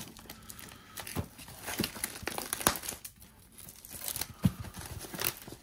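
Plastic wrapping on a trading card collection box crinkling and tearing as it is unwrapped, in irregular crackles with a brief lull about halfway.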